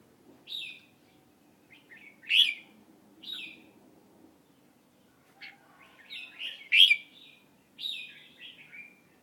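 A bird chirping: short high chirps spaced about a second apart, then a busier run of chirps from about five seconds in that ends in falling notes.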